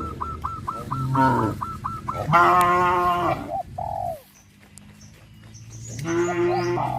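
Cattle mooing: one long moo a little over two seconds in and another starting near the end. Over the first two seconds there is a fast run of short, high chirps, about five a second.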